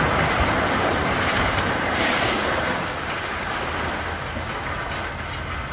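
Brick masonry and debris from a demolished building wall crashing down onto the rubble pile: a continuous noisy crashing, loudest at first and fading gradually after about three seconds.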